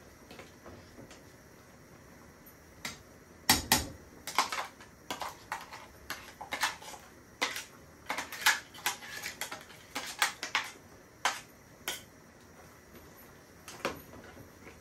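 A spoon knocking and scraping against cookware in an irregular run of sharp clinks, as ground chilli paste is scooped out and added to the pot. The clinking starts a few seconds in, is densest through the middle and trails off with a couple more near the end.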